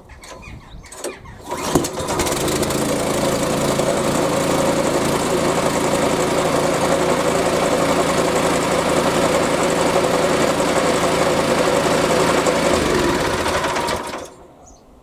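Hyundai HYSC210 scarifier's petrol engine pull-started warm, with the choke about three quarters on. It catches on a recoil pull about a second and a half in and runs at a steady speed, then winds down and stops near the end.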